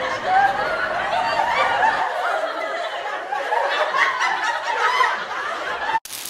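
Laughter and chuckling, which cuts off suddenly near the end.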